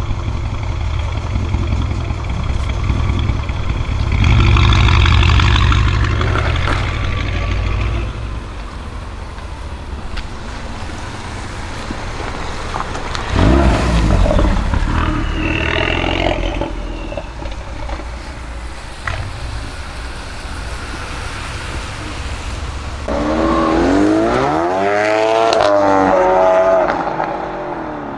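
Mercedes-Benz S63 AMG's twin-turbo V8 with a decat exhaust, running loud with a deep rumble and being revved. There is a sudden surge of revs about halfway through. Near the end the pitch swings up and down several times in quick blips.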